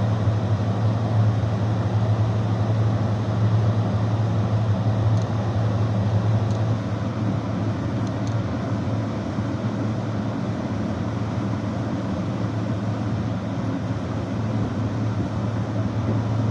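Heat pump water heater running: a steady low hum with a rushing noise above it, which comes in suddenly and then holds even.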